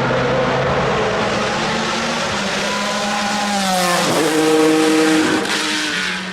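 Pilbeam MP91 LMP2 race car's JPX/Mader V6 engine running hard; its pitch drops sharply about four seconds in, and it is loudest just after that.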